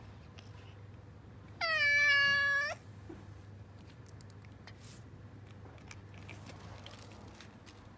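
Tabby cat giving one long, steady meow of about a second, a couple of seconds in. Afterwards only faint clicks as it starts eating food off the ground.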